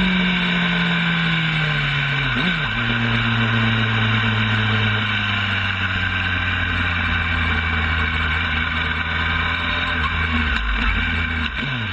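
Racing sportbike's engine heard on board with wind noise: the revs fall as the bike slows, change briefly about two and a half seconds in, then hold a steady pitch, with two short dips near the end.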